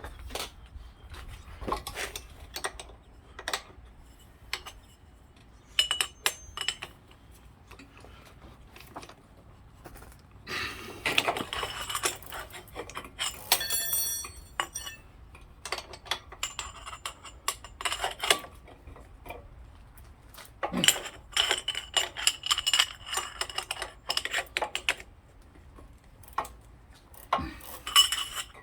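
Metal tools and small metal parts clinking, tapping and scraping during hand work on an e-bike pedal, with irregular sharp clinks, a few that ring briefly, and a few seconds of scraping near the middle.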